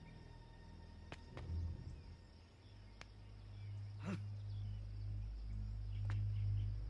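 Film soundtrack: a low, droning score that swells from about halfway in, with a few faint sharp hits scattered over it.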